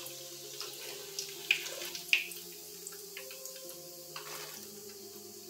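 Breaded chicken nuggets frying in a pan of hot oil: a steady sizzle with scattered pops and crackles, over a low steady hum.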